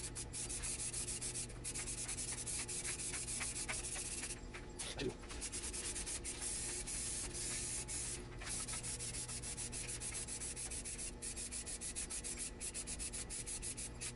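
Aerosol spray-paint can hissing as black paint is sprayed onto wood in long passes, with a few short breaks between passes.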